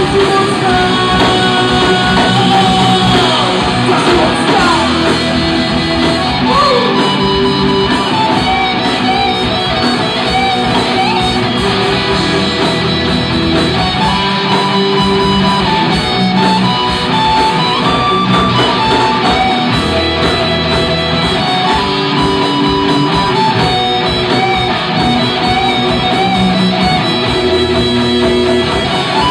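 Live rock band playing loudly: electric guitars over drums, with held melodic guitar notes and some sliding notes in the first few seconds.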